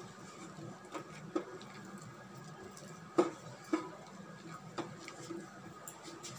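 A crumbly flour mixture being mixed by hand in a stainless steel bowl: soft rubbing with a few sharp, irregular clicks of fingers knocking against the steel, the loudest a little after three seconds in. A faint steady hum lies underneath.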